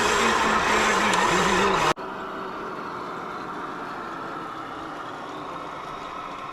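Radio-controlled scale trucks and excavators running, a motor whine wavering up and down in pitch over a noisy rumble. It cuts off abruptly about two seconds in, leaving a quieter steady running noise.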